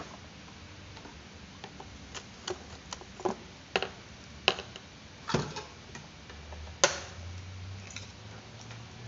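Irregular light clicks and taps of small electronic parts and tools being picked up and set down on a hard tabletop, with one sharper knock about two-thirds of the way in.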